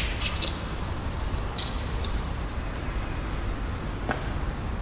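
Steady low city traffic rumble, with a few short scuffs in the first two seconds.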